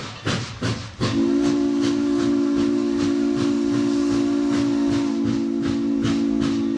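Frisco 1522, a 4-8-2 Mountain-type steam locomotive, working under power with its exhaust chuffing about three times a second. About a second in, its steam whistle comes in as one long, low chord held over the chuffing.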